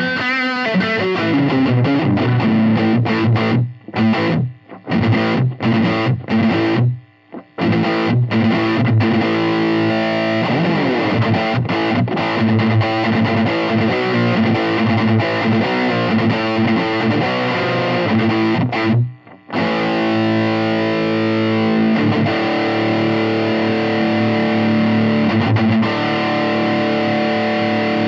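Electric guitar played through a Joyo Deluxe Cruncher distortion pedal: crunchy distorted chords and riffs, broken by short stops several times in the first third and once about two-thirds through. In the last third, chords ring out held.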